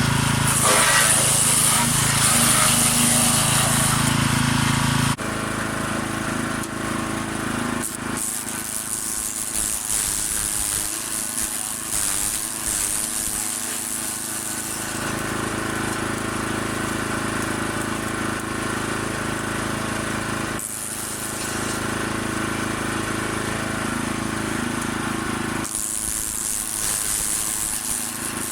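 Small petrol wood chipper with a 6 hp engine running steadily. It is louder, with a strong high hiss, for the first five seconds, then drops suddenly and runs on at a lower level.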